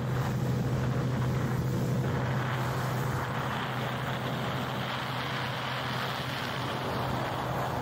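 Motorboat engine running steadily at speed, a constant low drone, with rushing water and wind buffeting the microphone.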